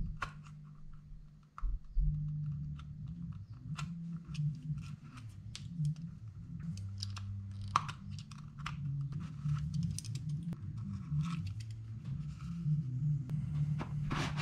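A small knife cutting and scraping at the threads of a plastic spray-gun paint cup lid: a run of irregular short scrapes and clicks. The threads are being trimmed because they were too tight to screw on and off.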